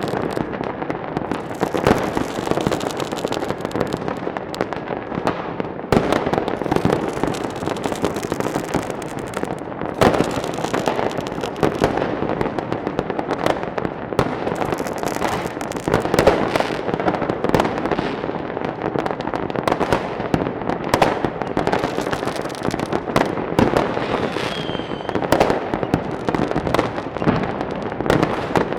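Fireworks going off: a dense, continuous crackle of pops and bangs, with louder bangs every few seconds.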